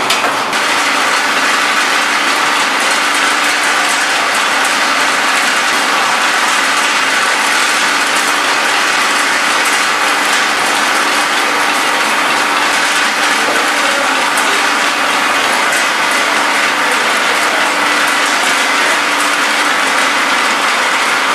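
Vibratory bowl feeder of a candy flow-wrap packaging machine running: a steady, dense rattle of small candies shaking along the stainless-steel bowl's track, over a faint steady machine hum.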